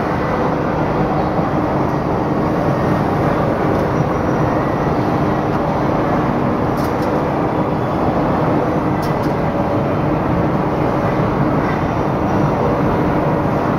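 Steady machinery noise of a woodworking factory floor around a high-frequency edge glue press, a constant din with a low hum running under it.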